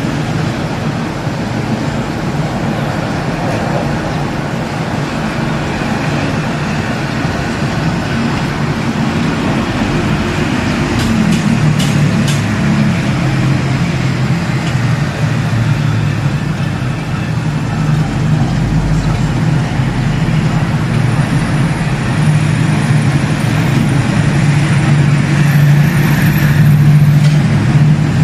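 Steady low rumble of road traffic, growing somewhat louder in the second half, with a few faint clicks about halfway through.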